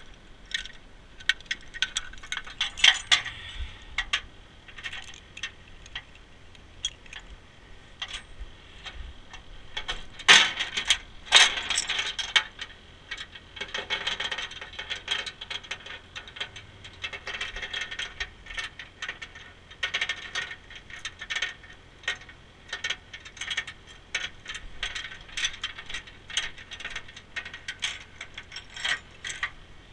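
Steel tow chains clinking and rattling as they are handled and unhooked from a tow truck's wheel lift, many small irregular clinks with a couple of louder metal clanks about ten and eleven seconds in.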